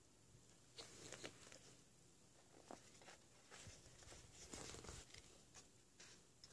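Faint paper rustling as the pages of a hardcover book are handled and turned, in short scattered strokes, with a longer rustle about four to five seconds in as a page is turned over.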